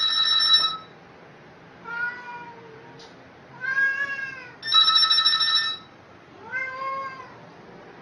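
A telephone rings in short bursts of steady electronic tones, once at the start and again about five seconds in. Between the rings a cat meows three times, each call rising and falling in pitch. A short click comes about three seconds in.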